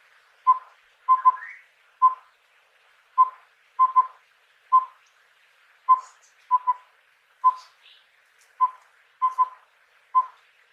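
Collared owlet calling: short hooting notes on one pitch in a repeated four-note phrase (one note, a quick pair, then one note). The phrase comes four times, about two and a half seconds apart.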